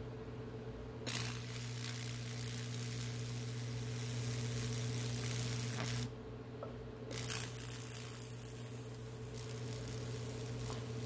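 High-voltage Lichtenberg wood burning: a steady electrical hum with a hissing, sizzling crackle as the current arcs and burns branching channels into the wood. The crackle starts suddenly about a second in, cuts out around six seconds, and starts again a second later.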